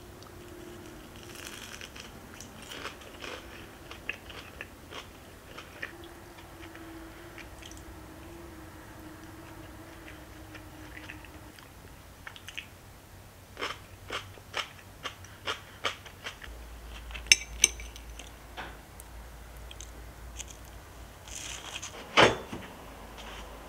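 Close-miked eating: crunchy chewing and biting of food, with scattered sharp clicks of chopsticks against a ceramic plate. A louder single knock about 22 seconds in.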